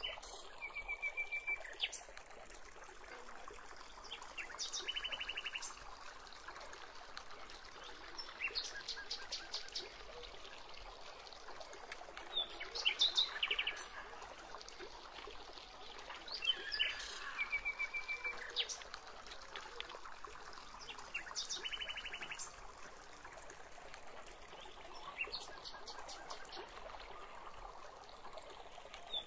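Wild birds calling again and again, short high trills and rapid pulsed chirps coming every few seconds, over a steady outdoor background hiss.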